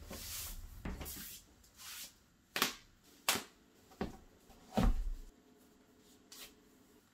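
Clothing rustling as tights are pulled on, then a few sharp knocks and one heavier thump as running shoes are put on and set on a wooden floor.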